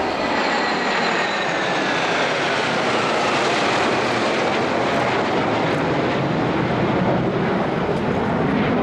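Jet engine noise from a formation of six Chengdu J-10 fighters flying past overhead: a loud, steady rush with a whine that falls in pitch over the first few seconds as the jets go by.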